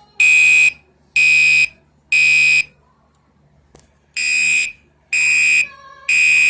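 Fire alarm sounder beeping very loud and close, in the temporal-three evacuation pattern: three half-second beeps about a second apart, a pause, then three more.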